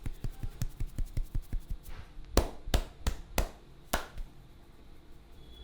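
Head-massage percussion with the hands: rapid, even chopping taps on the head, about five a second, then five louder sharp slaps, four in quick succession and one more just after, before the strokes stop.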